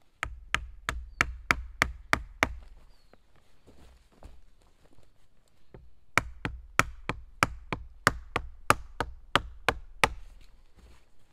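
Wooden mallet knocking a wooden peg into the pole frame of a nail-free bushcraft chair, sharp wood-on-wood strikes about three a second. About eight strikes, a pause of a few seconds, then about a dozen more.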